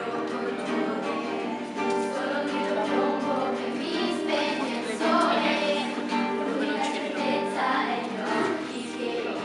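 Music: a group of young voices singing together over an instrumental accompaniment.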